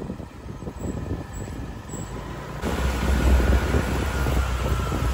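Wind buffeting the microphone over the engine and road rumble of a moving vehicle. The rumble gets louder after a cut about two and a half seconds in.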